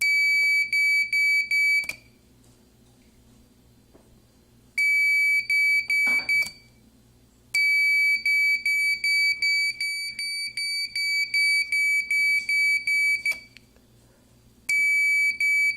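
Entry alarm's electronic buzzer sounding a high-pitched beep, pulsed about three times a second, in four bursts with short pauses between them; the third burst runs about six seconds.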